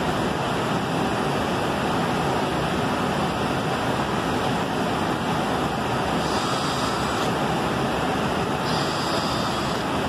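Steady loud rushing noise of running workshop machinery. A handheld electric drill runs briefly into wood twice, at about six and nine seconds in, adding a higher whine on top.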